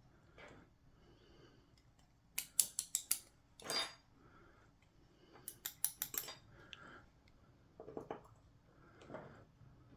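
Sharp metallic clicks from small lock-cylinder parts being handled: two quick runs of about five clicks each, with softer clinks in between and near the end.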